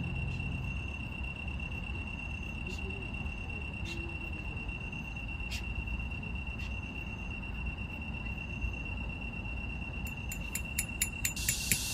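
Crickets singing in one steady, unbroken high trill over a low rumble. Near the end, a rapid run of sharp clicks starts and speeds up, and a hiss sets in.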